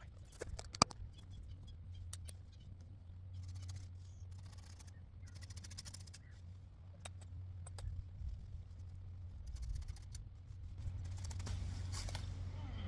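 Pruning shears snipping small branches: scattered sharp clicks, with leaves and twigs rustling in between.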